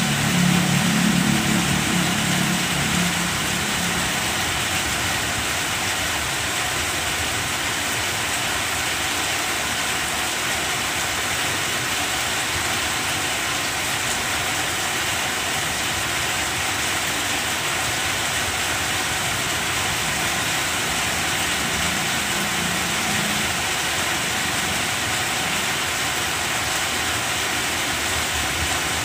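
Steady rain falling on banana leaves, an even hiss. A low hum stands over it for the first three seconds, and faintly again about two-thirds of the way through.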